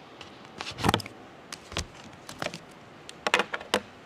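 Irregular knocks and clicks of a book being picked up from a music-stand lectern and handled close to a stand microphone, loudest about a second in and again in a quick cluster near the end.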